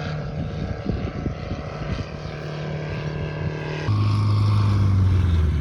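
Light aircraft's propeller engine droning steadily. About four seconds in, the note drops abruptly to a lower, louder drone.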